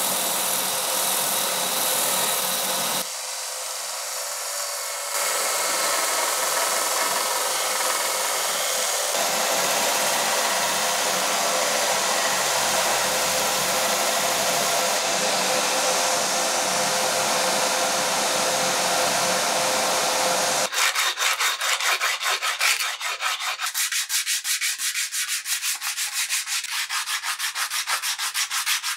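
A dark wooden handle scale ground on a small benchtop belt sander: a steady sanding hiss. About two-thirds of the way in this gives way to hand sanding of the scale clamped in a vise, quick back-and-forth strokes about four a second.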